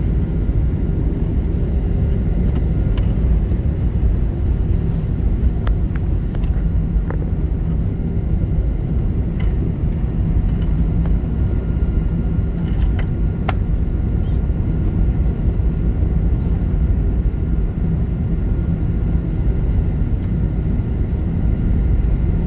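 Steady low rumble inside the cabin of a Boeing 737-800 rolling on the ground after landing, its CFM56 engines at idle, with a few faint clicks.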